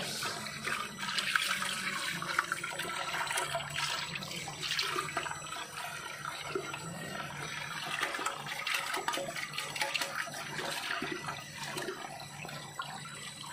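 Water poured slowly over a small glass fish tank and splashing off the glass, rinsing a citric-acid and detergent scale remover from its panels, with a low steady hum underneath.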